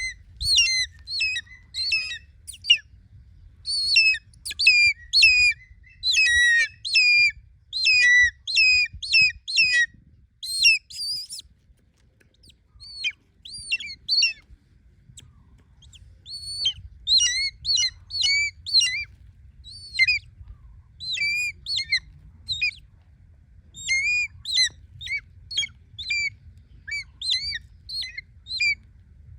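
Changeable hawk-eagle calling: runs of short, shrill, squawking notes repeated rapidly in bursts, with a lull in the middle.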